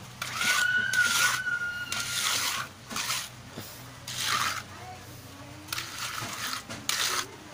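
Wooden hand float scraping across a freshly poured cement floor in repeated strokes with short pauses between them, smoothing and levelling the wet surface.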